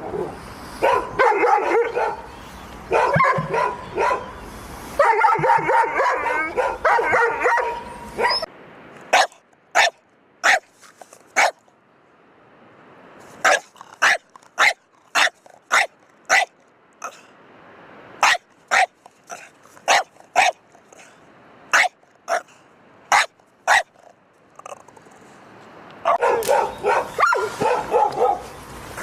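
A pet dog barking over and over, fast and excited, for about eight seconds. It then gives a long series of short, sharp single barks, often in pairs, with quiet between them. Rapid barking starts again near the end.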